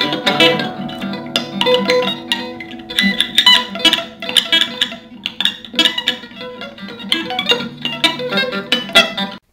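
Guitar being played, many plucked and strummed notes in quick succession, stopping abruptly near the end.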